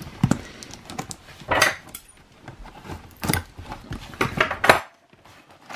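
Hands handling a cardboard box and picking at and tearing its seal: a string of short scrapes and taps, with a few louder ripping scrapes about one and a half, three and four seconds in.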